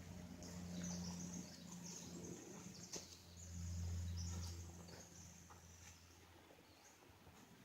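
Faint outdoor ambience: a low steady hum that swells about three and a half seconds in and then fades, with high chirping calls and a few light clicks.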